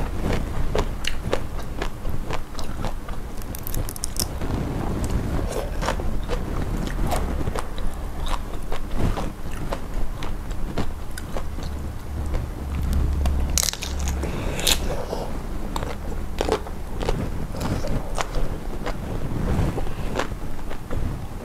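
Close-miked eating: biting, crunching and chewing, with many irregular sharp crackles, as whole unpeeled chilli prawns are eaten shell and all.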